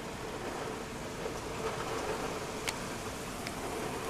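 Torrential thunderstorm rain pouring steadily, with a few sharp ticks, the clearest about two-thirds of the way through.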